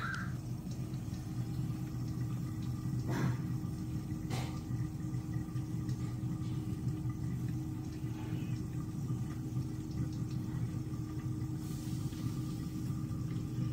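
A steady low hum with a couple of held low tones, and two faint clicks a few seconds in.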